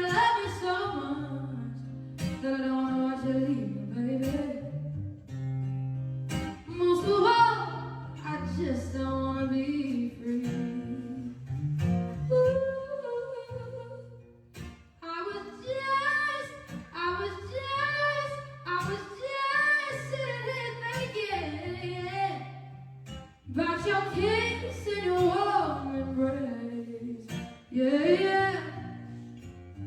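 A woman singing with guitar accompaniment, holding long notes over low sustained bass notes, with short breaks between phrases.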